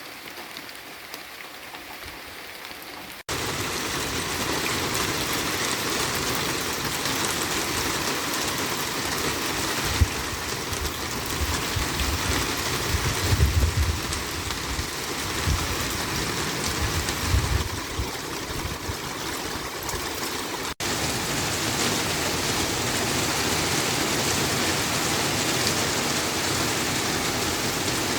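Steady rain falling, softer for the first three seconds and then louder after an abrupt cut. A few low thumps sound through the middle stretch.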